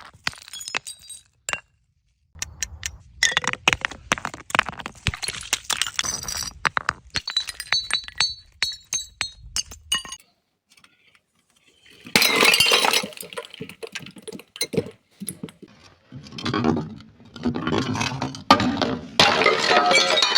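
Glass bottles breaking, with many sharp clinks and the high ringing of shards. It stops for a couple of seconds about halfway, then comes back as denser crashing and crunching of glass.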